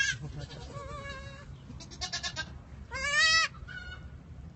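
Newborn goat kids bleating: a faint call about a second in, then a loud, high bleat about three seconds in.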